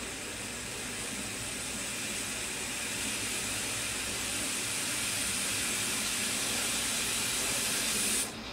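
Steady steam hiss from a WMF Perfect Plus pressure cooker heating on high heat, growing slowly louder as pressure builds toward the valve rising. It stops shortly before the end.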